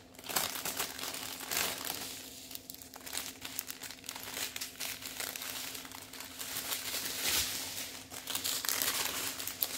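A strip of small plastic bags of diamond painting drills crinkling as it is handled and unfolded, with irregular crackles throughout. A faint steady hum runs underneath.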